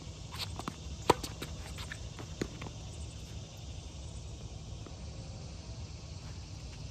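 A tennis racket striking the ball with a sharp pop about a second in, amid a few fainter clicks from the ball and shoes on the hard court; after that only a quiet, steady outdoor background.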